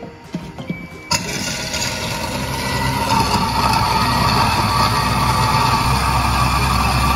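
Lid-switch kitchen sink food waste disposer starting suddenly about a second in, after a few light clicks. It then runs steadily with a low motor hum, grinding food scraps while tap water runs into the sink.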